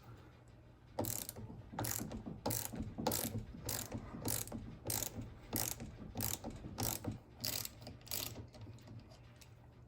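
Hand socket ratchet being worked in steady strokes, each stroke a burst of clicking, about one every two-thirds of a second. It starts about a second in and stops a little over a second before the end.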